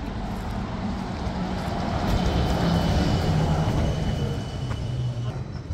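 Red articulated city bus approaching and passing close by, its running and tyre noise swelling to a peak about two to three seconds in and then easing off. A steady high whine runs under it and stops about five seconds in.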